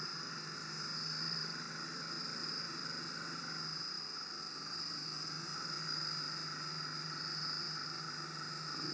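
Steady night chorus of insects: a continuous high-pitched trill, with a faint low hum underneath.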